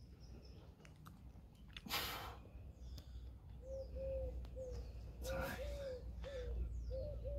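A dove or pigeon cooing in short repeated phrases of low, arched notes from about halfway in, with two sharp breathy exhalations from a man pulling resistance-band rows.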